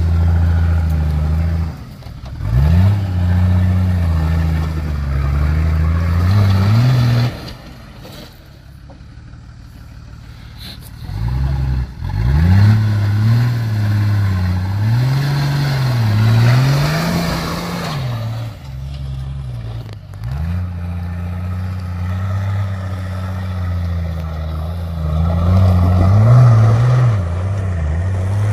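4x4 off-road vehicle engines revving up and down, the pitch rising and falling with the throttle. There is a quieter lull from about seven to eleven seconds in.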